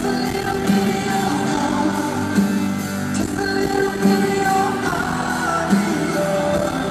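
Live concert music: a male lead vocal sung over strummed acoustic guitar and backing band, with regular beat accents, recorded from the audience in a large arena.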